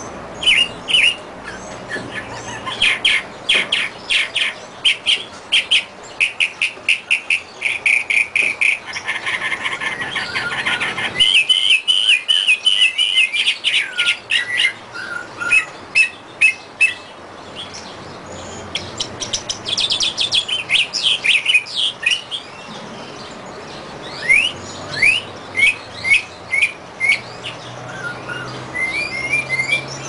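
Mockingbird (cenzontle) singing a long, varied song: short notes and phrases, each repeated several times in quick series, with a dense fast trill about halfway through and rising slurred whistles near the end.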